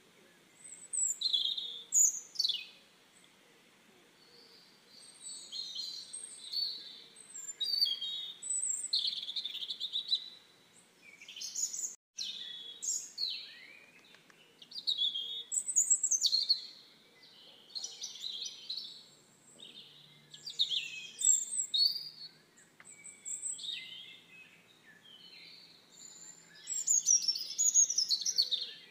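Songbirds chirping and singing: bouts of quick, high chirps and sweeping whistled phrases, with short pauses between them.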